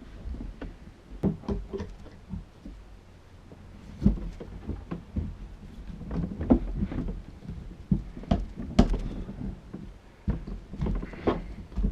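Irregular knocks, thumps and scrapes as a rubber electric-skateboard tire is levered onto its hub with tire irons and pressed on by hand.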